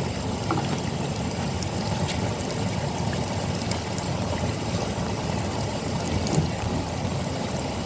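Tap water pouring steadily from a hose into the wash tub of a Kuppet twin-tub washing machine as the tub fills.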